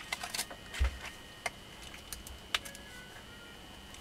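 Scattered light clicks and taps, with one dull low knock about a second in, as a knife blade works along the slots of a hand-held, freshly wound DC motor armature to cut and close the slot insulation. A faint steady high whine runs underneath.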